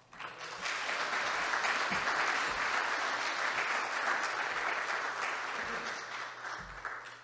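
Audience applauding: a seated crowd clapping, which starts just after the last words and fades out near the end.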